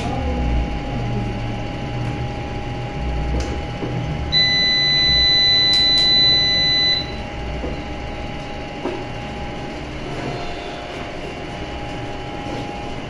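Buzzer of a Fronus PV5200 solar inverter sounding one long, steady, high-pitched beep about four seconds in, lasting about two and a half seconds. A steady faint electrical hum and a few small handling clicks run underneath.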